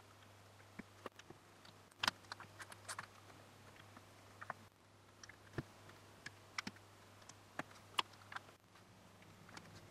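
Plastic LEGO bricks clicking and tapping as they are handled and pressed onto each other and onto a baseplate: faint scattered clicks, with a quick cluster about two seconds in and a sharper single click about eight seconds in.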